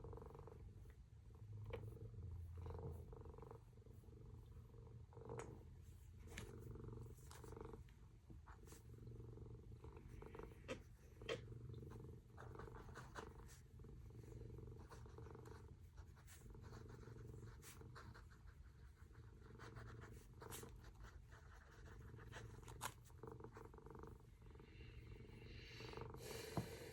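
Near silence: room tone with a faint steady low hum and scattered soft clicks.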